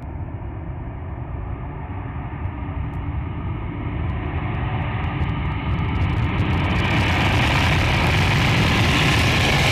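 Steady jet aircraft noise, a low rumble with a rushing hiss, growing louder and brighter over the last few seconds.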